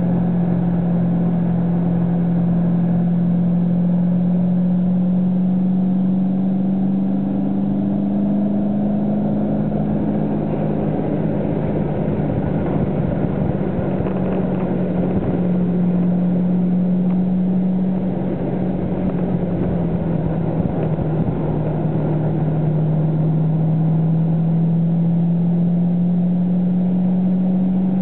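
Car engine running hard at track speed, heard from inside the cabin, its drone slowly rising and falling in pitch as the car accelerates down the straights and eases for the corners, over steady road and wind noise.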